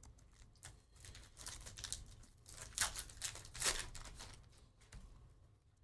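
A Topps Heritage baseball card pack's wrapper being torn open and crinkled by hand: a series of short rustling rips, the loudest two about three and four seconds in.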